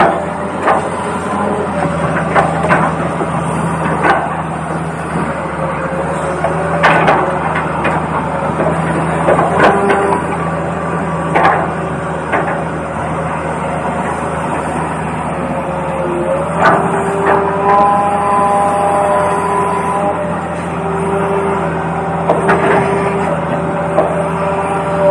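Toy RC excavator running, with held electronic tones that jump between pitches over a steady low hum, and frequent sharp plastic clicks and knocks.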